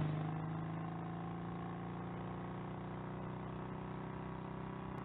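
Steady low droning hum made of several held tones over a faint flickering rumble, starting abruptly and holding even.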